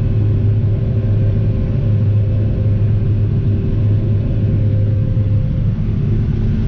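John Deere 9500 Maximizer combine running steadily while harvesting wheat, heard from inside its cab: a constant low drone of engine and threshing machinery with a couple of steady hums above it.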